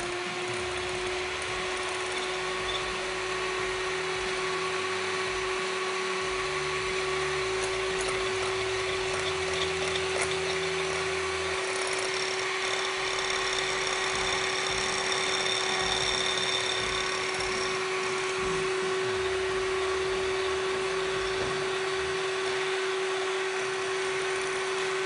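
Anex electric hand mixer running at a steady speed, its beaters whisking two eggs in a glass bowl; a steady motor whine.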